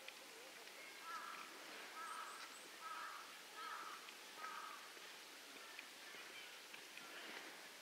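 A crow cawing: five short caws in a row, about three quarters of a second apart, faint.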